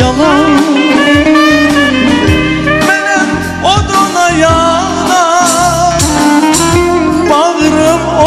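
A man singing a wavering, ornamented vocal melody with vibrato, backed by a band with a repeating bass line.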